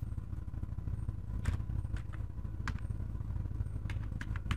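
Computer keyboard keys tapped: single clicks about a second and a half in, at two seconds and just before three seconds, then a quick run of four near the end, over a steady low hum.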